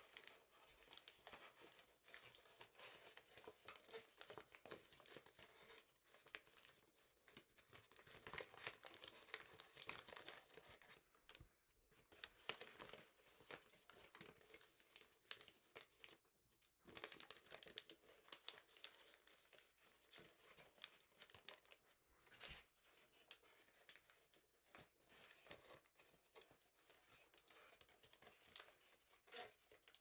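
Origami paper crinkling and rustling under the fingers as it is folded and creased by hand: a faint, irregular run of small quick crackles.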